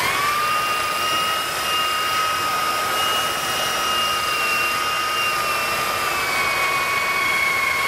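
Handheld belt sander with a brand-new 80-grit belt switched on and running on a board: a quick rise in pitch as it spins up, then a steady high whine. The pitch drops a little about six seconds in.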